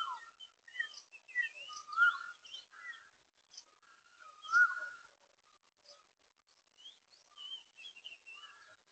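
Wild birds singing and calling: a scatter of short whistled phrases and chirps, the loudest whistles near the start, about two seconds in and about four and a half seconds in.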